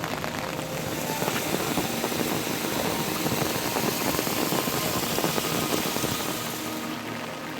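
Heavy monsoon rain pouring down in a dense patter, growing louder through the middle and easing near the end, with faint background music.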